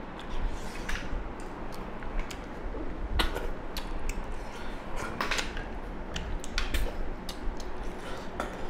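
Eating by hand from steel plates of snail curry: snail shells clicking and scraping against the metal, and snails being sucked from their shells, heard as many scattered sharp clicks and short sucking noises.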